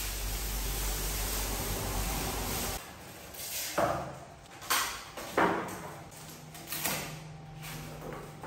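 Plastic stretch wrap rustling and crinkling as it is pulled off a new refrigerator, followed by several sharp knocks and clatters, about one a second, from about four seconds in, as the fridge and its packing pieces are handled.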